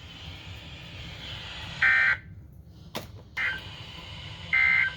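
Weather radio sending the EAS/SAME end-of-message data bursts after the watch message: three short bursts of buzzy data tone spread over about three seconds, the second one weaker and shorter. A sharp click comes between the first two bursts, over a steady low hum.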